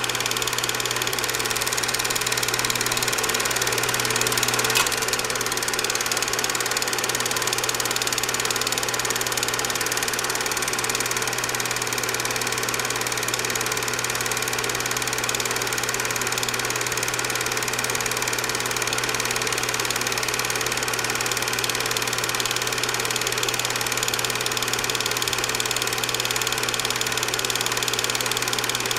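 Cine film projector running steadily: an even mechanical whir and clatter with a steady hum. One sharp click comes about five seconds in.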